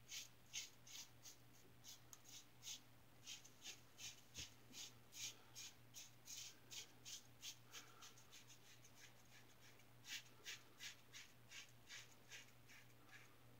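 Short, quick strokes of an injector razor with a Schick blade cutting stubble along the jaw and under the chin: a faint scratchy rasp about three times a second, pausing briefly twice.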